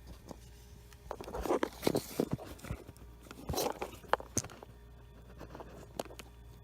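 Hands and tools working on a car engine: irregular scrapes, rustles and sharp clicks in two short clusters, over a faint steady hum.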